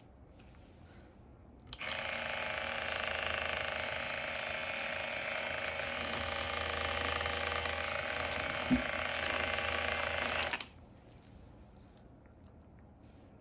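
A small electric motor device buzzing steadily for about nine seconds, switching on and off abruptly, with a single short knock near the end of the run.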